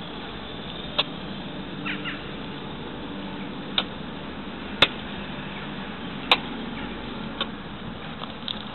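Steady outdoor background noise with a handful of sharp, irregularly spaced clicks and a brief high chirp about two seconds in.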